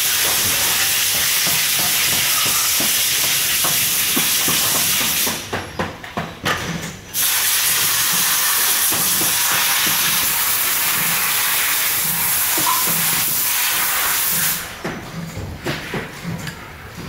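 Loud, steady hiss of rushing air that cuts in and out sharply, with a two-second break partway through. It stops well before the end, leaving faint knocks and clatter of metal parts being handled.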